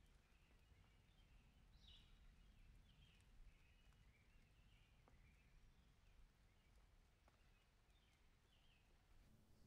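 Near silence: faint background hiss with faint, short high chirps now and then.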